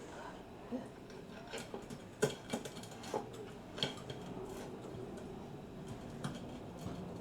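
A cooked frozen stone-bake pizza being cut up: scattered clicks and knocks of the cutting blade against the tray or board, the sharpest a little after two seconds and near four seconds in.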